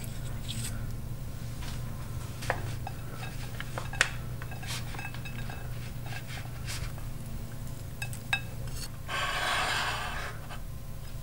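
Plating sounds: a few sharp clicks and taps of a wooden spatula and utensils against a ceramic bowl, then a soft rustling scatter near the end as chopped green onions are sprinkled over the rice, all over a steady low hum.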